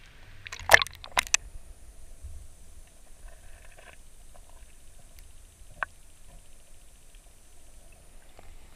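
Water splashing and gurgling as a camera dips under the surface of a pool about a second in, followed by muffled underwater sound with a few faint clicks.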